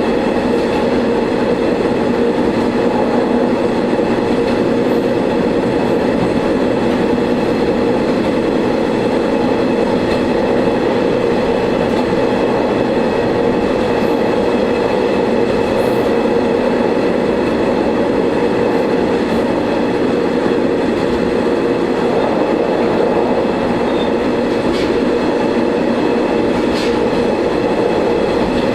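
Shigaraki Kohgen Railway diesel railcar running along the line, heard from inside at the front: a steady engine drone with wheel and track noise, and a few faint clicks near the end.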